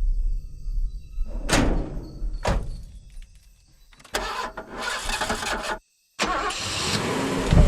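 Film sound effects in a montage: a low rumble, then two sharp whooshes about a second apart. After a short near-quiet gap comes a loud, harsh rush that cuts off suddenly and then comes back, building.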